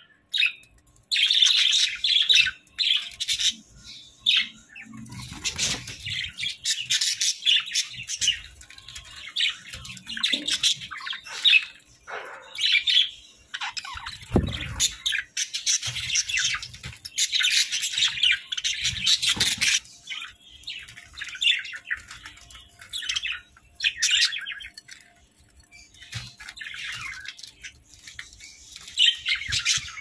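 A flock of Hagoromo budgerigars chirping and chattering in rapid, busy runs of short high chirps, thinning out in a couple of brief lulls. A short low bump comes about fourteen seconds in.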